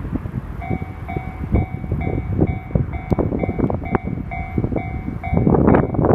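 Japanese railway level-crossing alarm starting up about half a second in, its electronic bell ringing about twice a second. Wind buffets the microphone throughout, hardest near the end.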